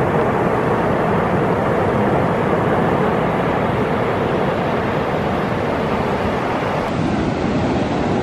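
Sea surf breaking and washing up the beach: a loud, steady rush of waves.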